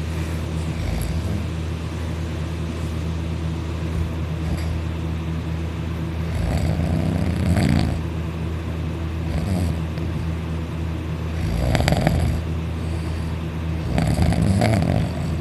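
Loud snoring in slow breaths, the heaviest snores coming in the second half, over a steady low hum.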